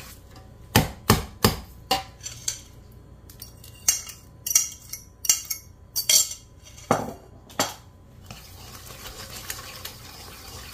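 Wire whisk clinking and knocking against a stainless steel mixing bowl, with a run of sharp knocks over the first eight seconds, then steady whisking of thick pancake batter.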